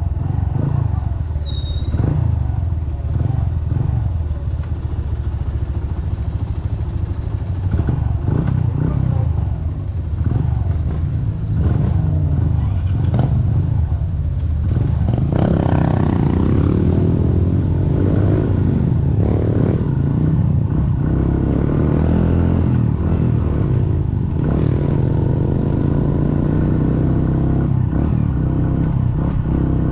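Classic motorcycle engine running under way on a rough dirt track, with repeated knocks and clatter as the bike jolts over the bumps. From about halfway through, the engine note becomes steadier and fuller.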